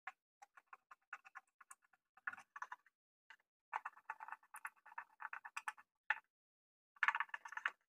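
Screwdriver turning screws down into a blender's plastic motor base: runs of quick, light ticks and clicks, with short pauses between the runs.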